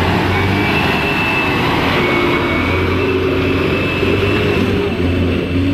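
Diesel engine of a Mitsubishi Fuso light truck running steadily under load as the truck crawls through deep mud.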